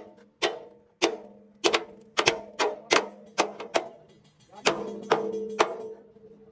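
Hammer blows on steel sheet or chassis metal: about a dozen sharp strikes at an uneven pace, each ringing briefly, with a longer ring after the strikes about five seconds in. A steady low hum runs underneath.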